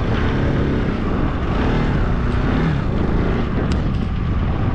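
Strong wind buffeting the microphone over a motorcycle riding slowly, a steady low rumble.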